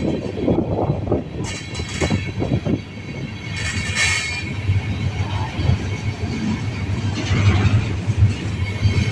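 Freight train rolling past with a steady low rumble and rattle of the cars. There is a brief high-pitched wheel screech or hiss about four seconds in and another near the end. No horn sounds.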